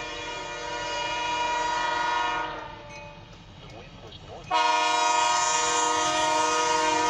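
Diesel freight locomotive's air horn sounding a steady multi-note chord in long blasts for a grade crossing. One blast ends about two and a half seconds in, and a louder one starts about two seconds later.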